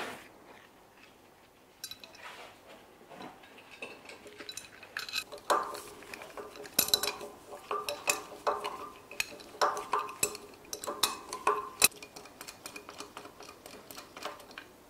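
Steel spanner clinking and tapping against an engine's metal fittings and pipework. It makes a run of irregular metallic clinks that are densest and loudest in the middle, with a sharp click at the very start.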